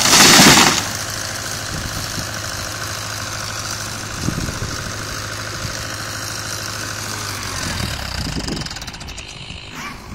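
Fordson Major diesel tractor engine running steadily at idle; its note changes and grows fainter near the end. A loud burst of rushing noise in the first second.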